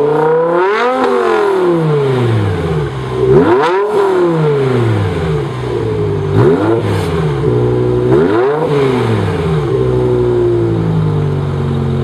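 BMW E60 M5's V10 with a muffler delete, revved four times while parked, each rev rising sharply and falling back to a steady idle.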